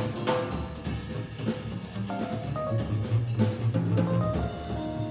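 Small jazz band playing live: upright double bass notes under a drum kit with cymbals, and piano.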